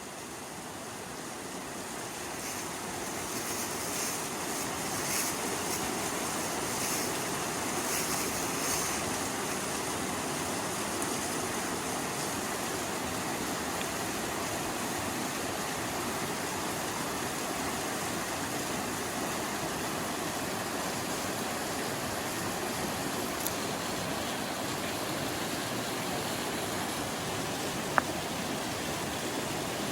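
Mountain stream rushing steadily, swelling over the first few seconds and then holding even. A few light clicks sound over it, with one sharp click near the end.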